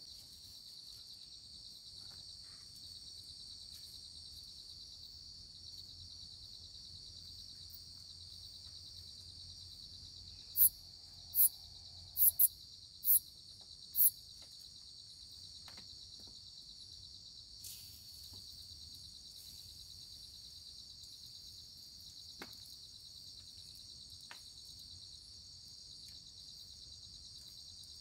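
Night chorus of crickets and other insects in a tropical forest: a steady, high, shrill trill. About ten seconds in, a quick run of six short, very high-pitched chirps stands out above it. A few faint knocks follow.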